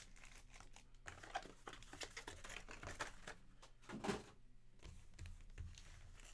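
Faint crinkling and tapping of trading-card packs being handled and set down on a table, with a louder rustle about four seconds in.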